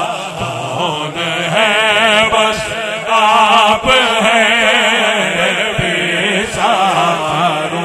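A man singing a naat in Urdu/Punjabi, drawing out a long, ornamented phrase whose pitch wavers and bends, with a short break about halfway through.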